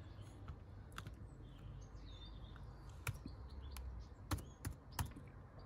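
About six scattered key taps on a laptop keyboard as a login password is typed, the last three close together near the end. Faint bird chirps behind.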